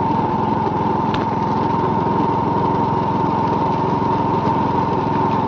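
Small engine of a slow-moving vehicle running steadily at low speed close by, an even rapid beat with a steady whine over it.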